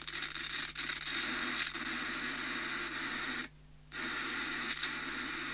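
Open-squelch receiver hiss from a Binatone Longranger 6 handheld CB radio's speaker, crackling as its worn sealed volume control is worked. The hiss cuts out briefly about three and a half seconds in, the noisy pot dropping out.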